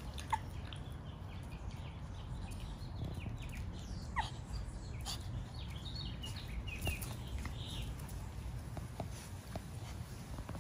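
Small dogs' claws clicking on concrete as Shih Tzu puppies move about, with a few short high chirps over a steady low rumble.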